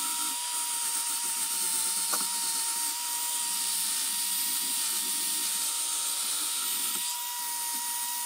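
Power drill spinning a wire wheel brush against a steel ball peen hammer head, scrubbing off surface rust: a steady hiss of wire bristles over a constant motor whine.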